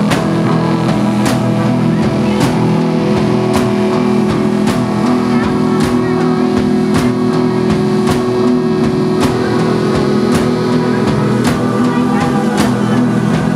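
Live rock band playing loudly: electric guitar, electric bass and a drum kit over a held keyboard chord, with a sharp drum hit about once a second.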